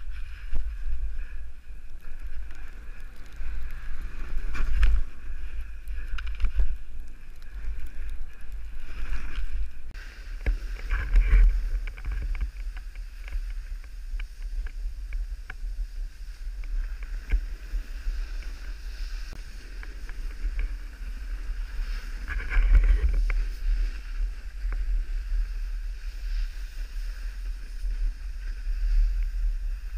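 Wind buffeting an action camera's microphone during a fast downhill run on snow: a steady low rumble that swells and eases, with the hiss and scrape of snow sliding underneath and a few short knocks.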